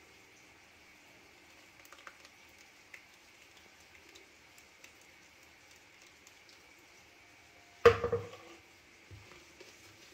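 Wire whisk stirring thick batter in a plastic dish as liquid is poured in: faint soft clicks and wet stirring. About eight seconds in comes one loud, hard knock with a brief ring.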